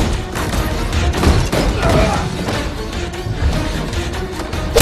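Fight-scene soundtrack: music under a dense run of thuds, booms and crashes.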